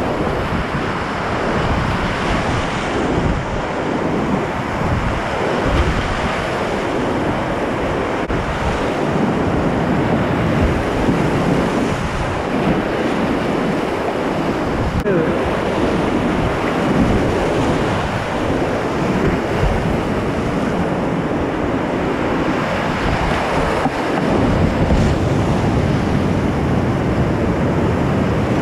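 Whitewater rapids rushing steadily and loudly around a kayak, heard close up from a helmet camera, with wind buffeting the microphone.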